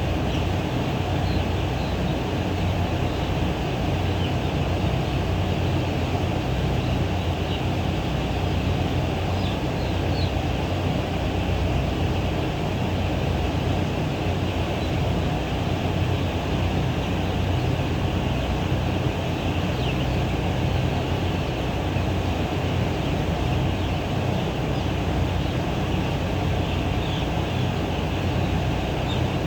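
Steady low rumbling noise that never changes, with a few faint, short high chirps now and then.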